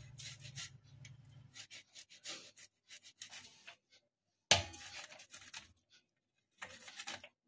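Boiled potato grated on a stainless-steel box grater in repeated scraping strokes, thinning out after about a second and a half. A sharp knock about halfway through is the loudest sound, followed by a few more scrapes near the end.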